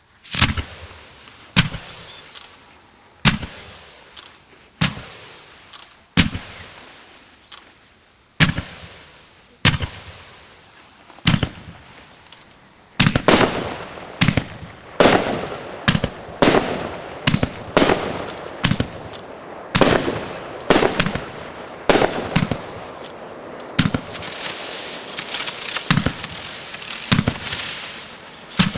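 Multi-shot consumer firework cake going off: single sharp bangs about one every second and a half, coming faster and overlapping from about halfway, with a dense crackling near the end.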